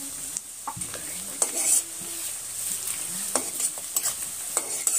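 Oil sizzling in a metal kadhai as a tadka of whole spices (coriander seeds, fennel, cumin) fries with onion and chilli. A spatula scrapes and clinks against the pan several times while stirring, most strongly about a second and a half in.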